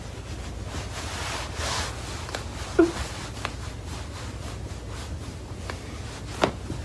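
Fabric rubbing and stretching as cotton underwear is pulled taut, over a steady low hum. A brief squeak comes about three seconds in, and a sharp click near the end.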